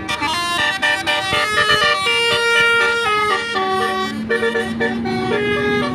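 Bus 'telolet' musical air horn playing a tune: a quick run of clear notes stepping up and down in pitch, one after another.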